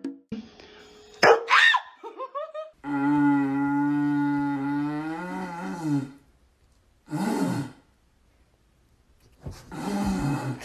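A long, low, steady drone blown through a cardboard tube, held for about three seconds and bending at the end, then two shorter rough calls a couple of seconds apart. Before the drone there is a short sharp sound and a few quick sliding squeaks.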